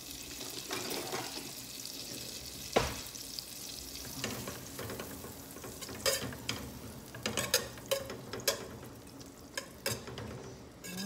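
Butter sizzling as it melts in a stainless steel saucepan, with a single sharp knock about three seconds in. From about six seconds in, a wire whisk stirs the butter, clicking and scraping against the pan.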